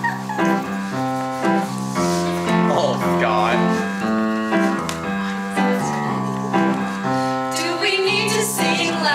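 Keyboard playing a chordal introduction, with a group of teenage voices starting to sing together about seven and a half seconds in.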